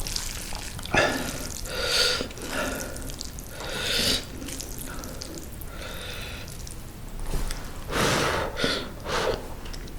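A person eating hot mala instant noodles, with about six short wet slurps and sharp breaths spaced a second or two apart.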